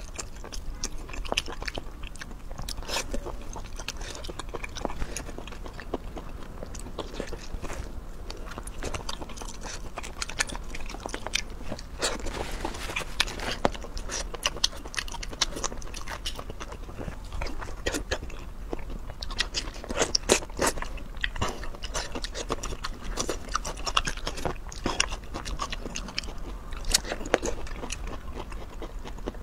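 A person chewing and biting food, with many short crunchy clicks throughout, coming thickest around the middle and again about two-thirds of the way in.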